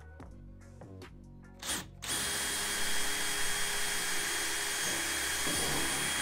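Cordless drill boring a hole through a canoe hull: a short burst about one and a half seconds in, then about two seconds in the drill runs steadily with a high whine. Background music plays underneath, and is all that is heard at the start.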